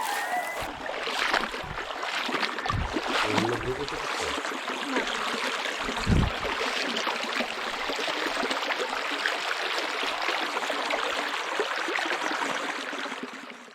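Steady rush and splash of water, with a few dull thumps about three and six seconds in; it fades out just before the end.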